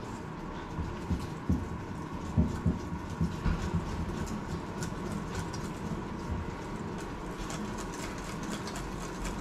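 Pancake-batter prep at a kitchen counter: many light, irregular ticks and taps of ingredients and utensils against a bowl, with a few soft knocks, over a steady faint hum.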